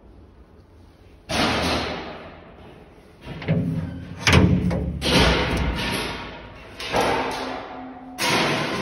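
Half a dozen heavy thumps and slams, each starting suddenly and dying away over about a second, with some ring in a large hall.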